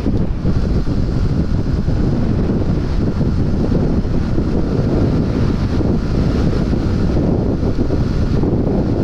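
Loud, steady wind rumble buffeting the microphone of a motorcycle ridden at highway speed.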